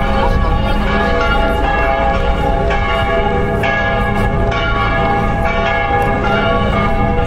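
Several bells ringing in a continuous peal, new strikes coming about twice a second and overlapping as they ring on, over a steady low rumble.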